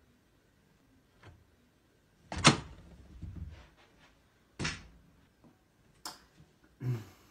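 A series of sharp knocks and thuds, door-like bangs with quiet between them. The loudest comes about two and a half seconds in, with more near the end.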